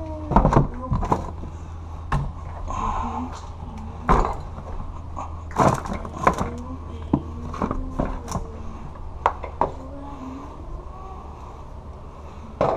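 Small boxes and bottles being handled and set down in a plastic storage tote: irregular knocks and clatters, about a dozen, over a steady low hum.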